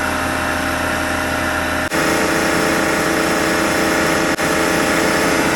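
Watermaker pumps running steadily after installation, a constant motor hum with several fixed tones over a rushing noise.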